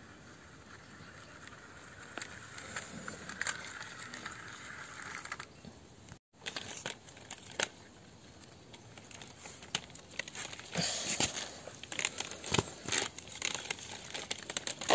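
Plastic toys pushed and handled on concrete: a soft scraping hiss of small plastic wheels for the first few seconds, then many irregular clicks and rattles of the plastic toy bicycle, busiest near the end.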